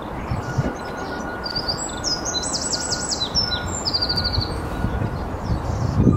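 A songbird singing one fast, varied phrase of high trills and quick downward sweeps, about two and a half seconds long, over a steady rushing background noise; a few low thuds come near the end.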